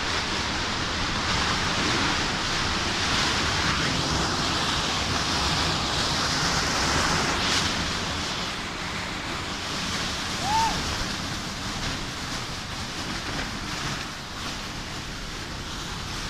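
Strong tornado wind rushing and buffeting the microphone in a steady roar of noise that eases a little partway through. A brief high rising-and-falling tone sounds about ten seconds in.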